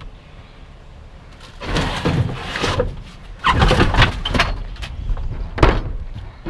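Wind buffeting the camera microphone in two rough gusts, with a single sharp knock near the end.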